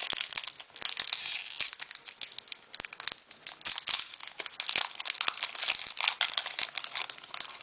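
Foil wrapper of a Pokémon booster pack being torn open and crinkled by hand, a dense run of irregular crackles and crisp clicks.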